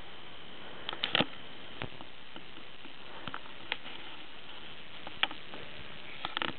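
A western massasauga rattlesnake's rattle buzzing faintly and steadily; this small rattlesnake's rattle is quiet. A few sharp clicks and taps sound over it, a cluster of them near the end.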